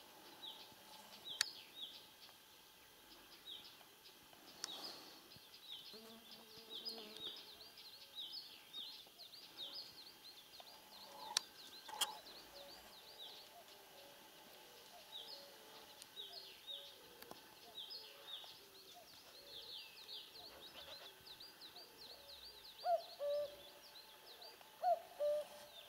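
Faint wild birdsong: many short, high chirps repeating throughout. Near the end come several lower, short pitched calls. A few sharp clicks fall in the middle, two of them close together.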